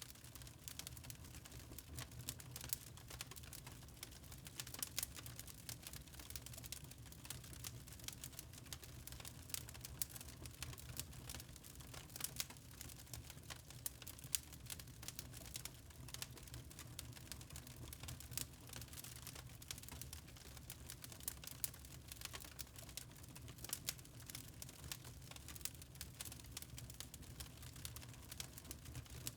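Wood fire crackling in a fireplace: irregular quick pops and snaps over a steady low rumble.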